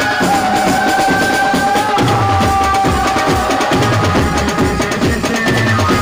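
Music: a held, stepping melody line over busy, fast drumming.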